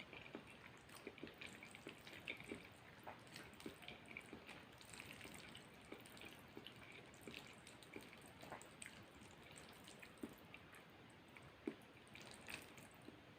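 Faint, wet chewing and mouth clicks of someone eating spaghetti, a scatter of small ticks and squelches several times a second.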